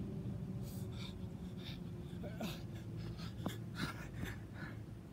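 Scuffing footsteps on artificial turf and heavy breathing as a man comes up close, winded after sprints and burpees: about eight short scratchy sounds spread unevenly over a few seconds.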